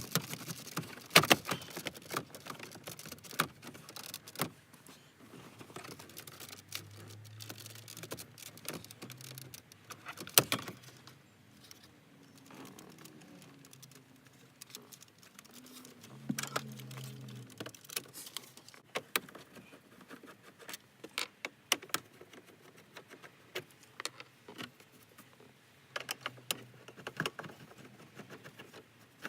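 Irregular clicks, taps and rattles of a screwdriver, screws and plastic dash trim being handled while a car's factory stereo is unscrewed and pried out of the dash.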